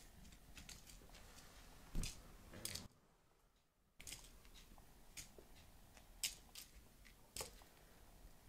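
Faint, scattered clicks and taps of kittens' paws and claws on a floor mat as they scamper and pounce, with a brief drop to near silence about three seconds in.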